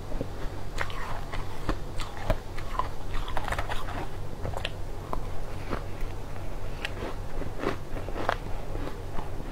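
Close-up crunching and chewing of a crunchy pink iced sweet, with many quick, irregular crunches over a low steady hum.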